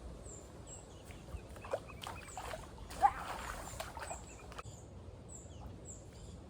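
Small birds overhead giving thin, high, falling chirps, about two a second, with rustling and a sharp click about three seconds in.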